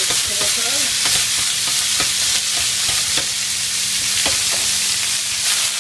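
Mixed vegetables (carrots, broccoli, capsicum, onion) sautéing in hot oil in a pan on a gas stove: a steady sizzling hiss with many small crackles and pops, over a steady low hum.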